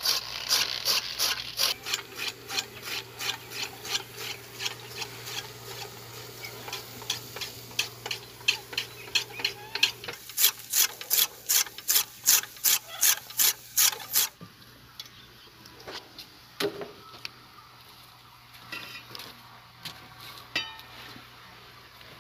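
Hand-cranked rotary saag cutter chopping mustard greens: each turn of the bladed disc gives a sharp swishing chop, about three a second, in a steady rhythm. About two-thirds of the way through the chopping stops, leaving only a few faint scattered ticks.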